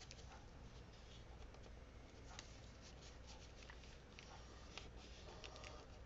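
Near silence, with faint scattered ticks and rustles of paper pieces being handled and pressed into place on a card.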